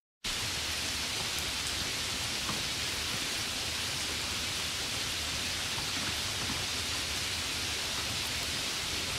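Steady, even rain noise that starts abruptly and cuts off sharply.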